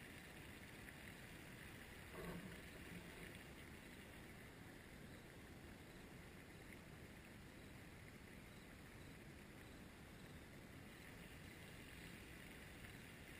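Near silence: a faint, steady outdoor hiss, with one brief soft sound about two seconds in.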